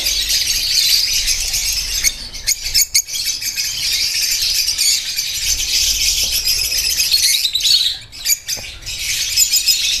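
Many lovebirds chattering at once: a dense, continuous high-pitched twittering and squawking, with a few sharp clicks.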